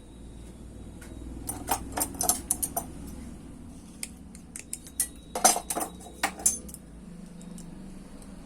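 Light metallic clicks and clinks of small metal parts being handled, in two bunches: a few about two seconds in, then a longer run from about four to six and a half seconds in.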